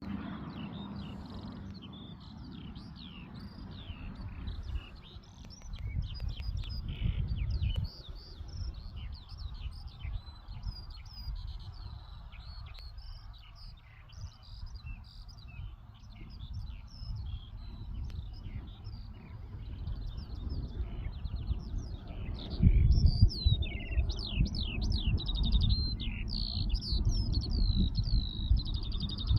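Many small birds chirping in quick, high, overlapping notes, busier near the end. A low rumbling noise runs underneath and grows louder for a couple of seconds about six seconds in, and again for the last seven seconds.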